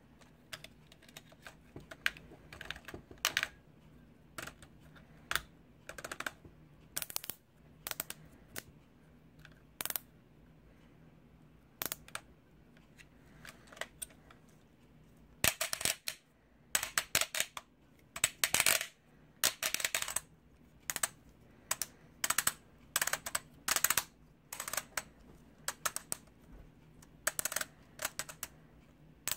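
Hard plastic clicking and clacking, irregular and in quick clusters, from the joints and parts of a Playmates Legendary Black Lion toy being moved by hand. The clicks come sparsely at first and thicken into louder runs from about halfway through.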